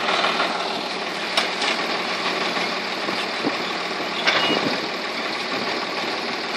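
Diesel engines of a farm tractor and a backhoe loader running steadily at an earthworks dig, with two sharp knocks, one about a second and a half in and another past four seconds.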